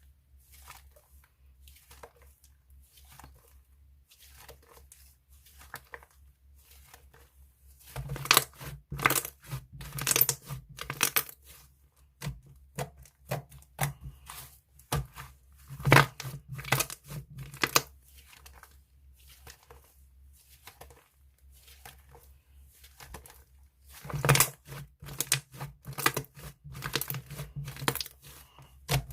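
Squishy slime being pressed and worked by hand, giving rapid small clicks and crackles from trapped air. Faint for the first several seconds, then louder bunches of crackling come and go.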